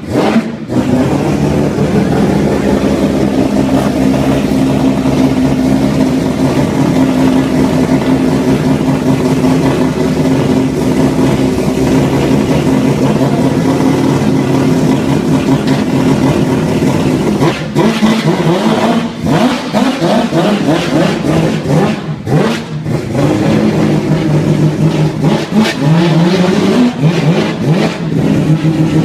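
Rotary engine in a modified Lexus GS sedan idling steadily, then revved repeatedly from about halfway in, the pitch rising and falling with each blip.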